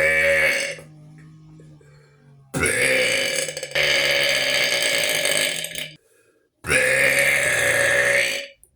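A person burping on purpose: one burp trails off just under a second in, then comes a long drawn-out burp of about three and a half seconds, and after a short pause another of about two seconds.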